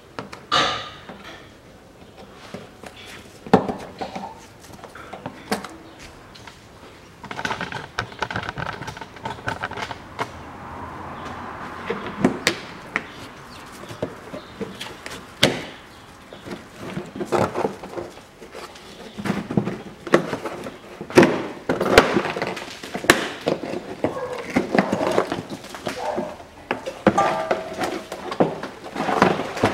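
Plastic push clips being pried out of a car's wheel-arch liner and the liner being pulled away: a run of scattered clicks, knocks and plastic scraping, busier in the second half.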